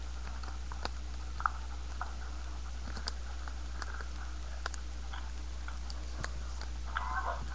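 Small LEGO Bionicle plastic pieces clicking and ticking as they are handled and fitted together: scattered light clicks, with a short rattle of several clicks near the end, over a steady low hum.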